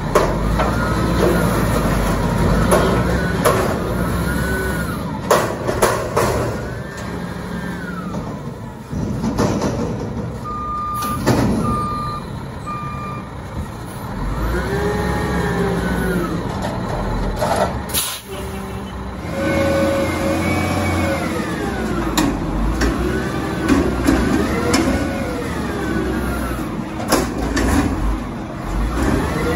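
White/GMC WX64 garbage truck's diesel engine revving up and down again and again, each rev a rising then falling pitch. Several sudden sharp sounds break in, and a few short beeps sound near the middle.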